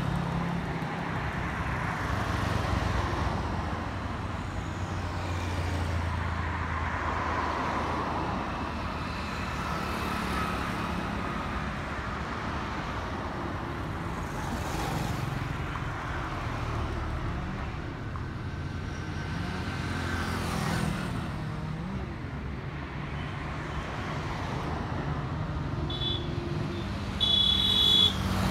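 City road traffic: cars and motorcycles passing one after another, engines and tyres running in a steady hum that swells as each goes by. There are short high beeps near the end.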